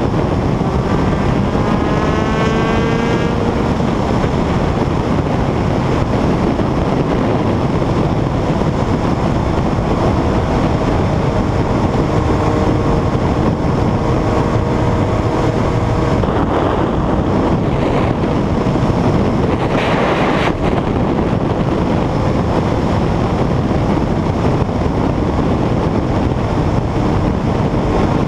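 Honda CBR900RR FireBlade's inline-four engine under way at road speed, almost buried under heavy wind rush on the camera microphone. The engine note climbs in the first few seconds, then holds steady.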